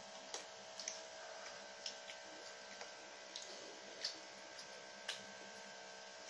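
Plastic forks clicking and scraping against plates as noodles are picked up and eaten: scattered sharp clicks at irregular intervals, the loudest about four seconds in, over a faint steady hum.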